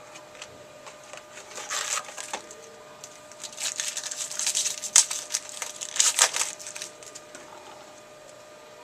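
Crinkling and crackling of foil trading-card pack wrappers being torn open and handled, in a short flurry about two seconds in and a longer one from about three and a half to six and a half seconds in.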